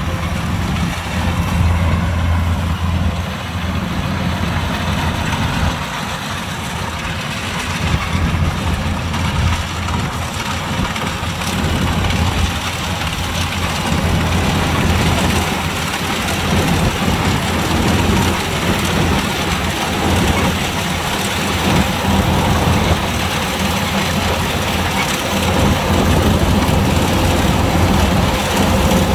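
Kubota DC-105X combine harvester running steadily: a deep engine drone under a continuous rushing machinery noise, getting a little louder near the end.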